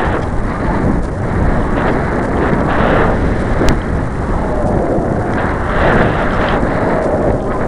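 Wind buffeting the microphone of a rocket-mounted onboard camera as the model rocket descends under its parachute: a loud, continuous rumbling that swells and fades.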